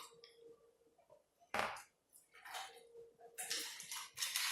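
Close-up eating sounds from a mukbang of homemade chicken strips: a sharp bite about one and a half seconds in, then bursts of crackly chewing near the end. A faint steady hum runs underneath.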